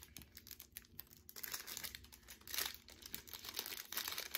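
Plastic snack wrapper crinkling in irregular bursts as it is handled and opened, loudest near the end.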